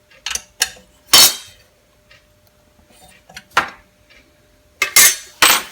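Metal tools and parts clinking and clanking as they are handled and set down, about six sharp knocks spaced unevenly, the loudest about a second in and near the end.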